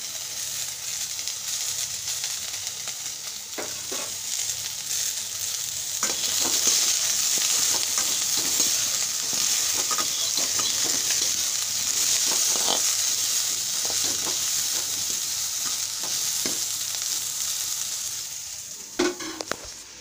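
Cauliflower florets sizzling as they fry in a metal pan, with frequent scrapes and taps of stirring; the sizzle grows louder about six seconds in. Near the end come a couple of louder knocks and the sizzle falls away.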